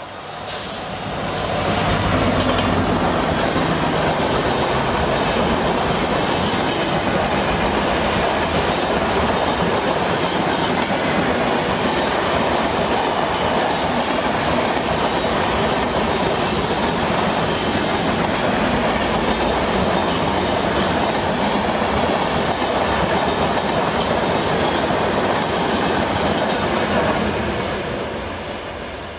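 Express train passing at speed behind a WDP-4D diesel locomotive. The locomotive's engine is heard briefly as the sound builds over the first two seconds, then comes a long, steady rolling noise of the coaches on the rails, fading near the end as the train moves away.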